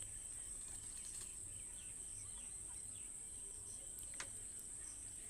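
Faint background of insects trilling in one steady high-pitched note, with a few faint chirps and a single click about four seconds in.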